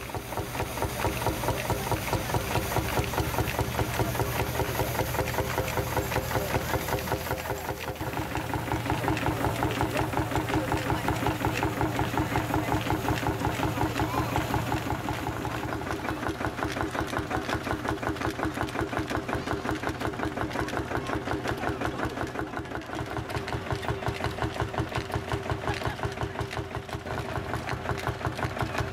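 Vintage farm tractor engines running at idle with an even, regular beat. The sound changes character a couple of times as the picture moves from one engine to the next.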